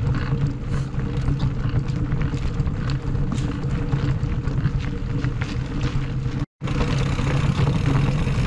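Mountain bike rolling along a dirt and gravel trail: steady rolling noise with a low drone, and many small rattles and knocks as the bike runs over stones and roots. The sound drops out for a moment about six and a half seconds in.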